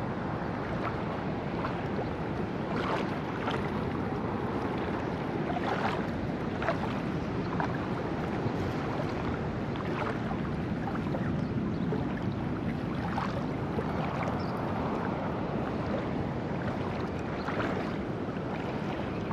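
Water sloshing around legs wading waist-deep through a river, with many small splashes over a steady rushing background.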